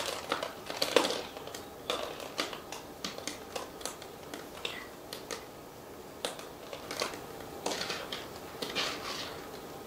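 Irregular small clicks, crackles and rustling of hands pulling apart a tangle of rooted hoya cuttings and their potting medium.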